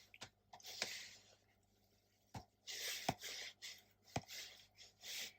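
Close handling noise: soft rustling with a few sharp taps and clicks at irregular moments, about four in all.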